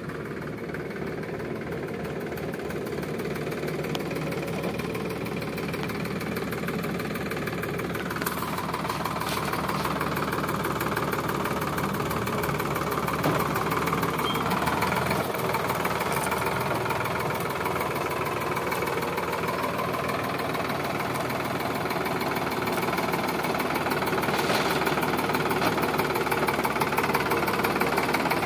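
Sonalika DI 745 III tractor's diesel engine running steadily, getting louder over the first half as the tractor draws near and passes close by.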